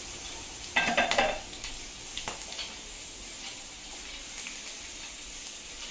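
Whole spices (cinnamon, cloves and fennel) sizzling softly in sesame oil in a kadai, with a brief scrape and clink of the steel ladle against the pan about a second in.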